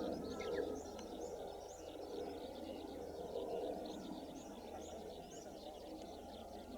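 Small birds chirping, with short high calls repeating over and over, above a steady low background noise.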